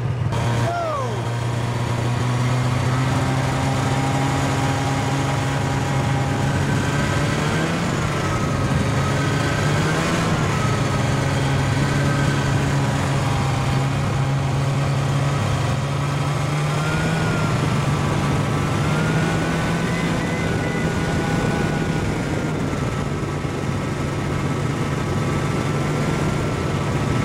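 Snowmobile engine running at a steady low speed, its pitch shifting slightly up and down, with a thin high whine wavering above it.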